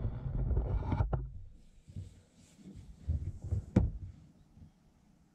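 A low rumble of handling noise, then knocks and a sharp click about four seconds in, as a throttle cable is handled against a truck's metal bed.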